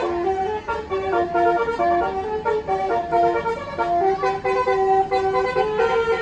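Bus basuri 'telolet' multi-note air horn playing a quick melody. Its loud, pitched notes change several times a second.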